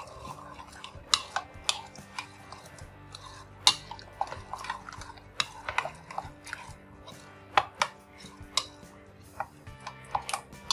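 Yogurt and spices being mixed by hand in a plastic bowl: irregular light clicks and knocks of fingers working the thick mixture against the bowl, with faint background music.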